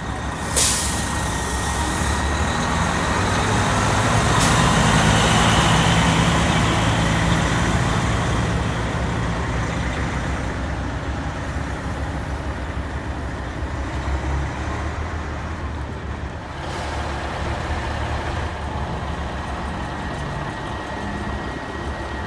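Heavy diesel truck engine running as a truck moves through the lot, getting louder over the first several seconds and then slowly easing off. A short sharp burst of air-brake hiss about half a second in.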